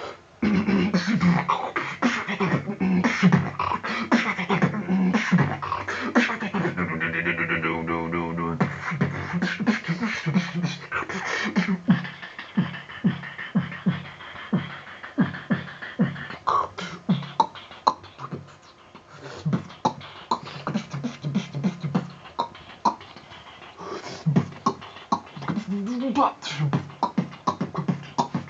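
Human beatboxing freestyle: a single performer making rapid vocal kick, snare and hi-hat sounds with the mouth, with a sustained buzzing bass tone about six to nine seconds in and hummed low tones woven into the beat.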